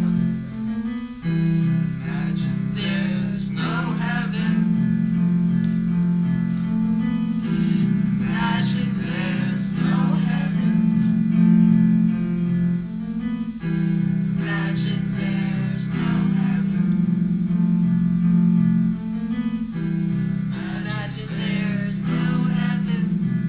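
Music: sustained low chords changing every couple of seconds, with guitar and keyboard.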